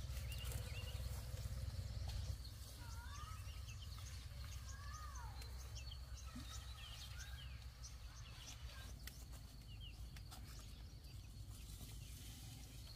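Birds chirping outdoors: many short high chirps, with a few sliding whistled calls in the first half. Underneath is a low steady rumble that eases after about two seconds.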